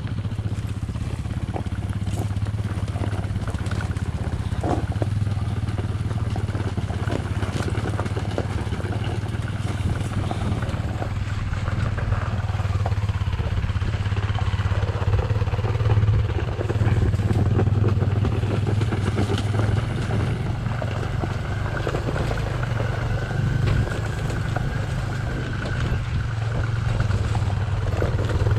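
Enduro dirt bike engine running steadily, its low note holding fairly even with small changes in throttle.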